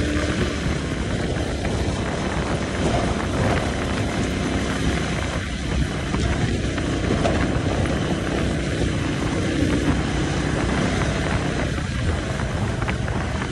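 Tiller-steered outboard motor running steadily at speed on an aluminum boat, under an even rush of wind and water.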